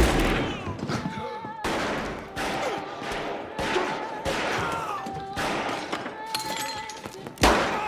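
Gunshots fired one after another, a second or two apart, each with a short echoing tail; the loudest comes near the end. Music plays underneath, with a wavering held tone.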